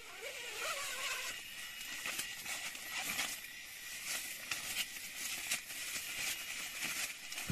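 Forest ambience: a steady high insect drone with scattered light clicks and rustles.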